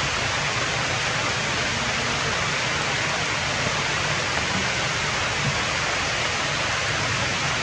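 Steady rain falling on forest leaves, an even, unbroken hiss.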